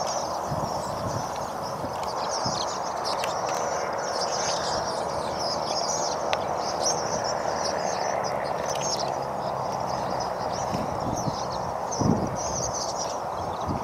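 A large flock of swallows twittering, with a dense continuous chatter of short high chirps, over a steady rushing background noise. A brief low thump comes near the end.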